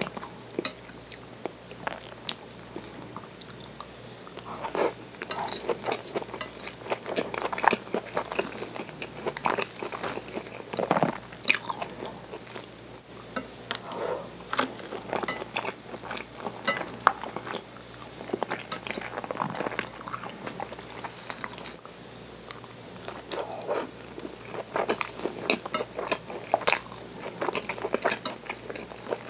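Chewing and biting okonomiyaki, a cabbage-and-pork pancake: an irregular run of small crunches and wet mouth clicks.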